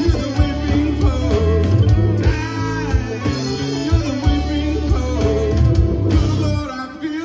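Live rock band playing electric guitars, bass, drums and keyboards, with a male singer. The bass and drums drop out near the end, leaving the guitars and voice.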